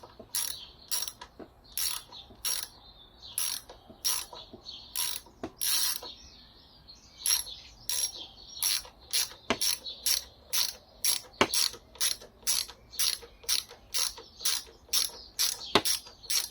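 Ratchet wrench clicking as it is swung back and forth to undo a bolt. The clicks come about two a second, with a short pause about six seconds in.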